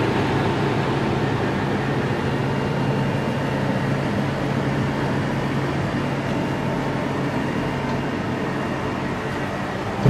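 Portable air conditioner running steadily in cooling mode: a low, even hum from the compressor under a broad rush of air from the fan. The unit is at full cooling, its outlet air at about 8 degrees.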